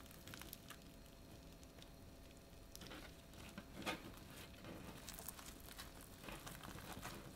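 Faint crackling and soft popping of fluffy slime with foam beads mixed in, being squeezed and pulled apart by hand, with scattered small clicks and one sharper one about four seconds in.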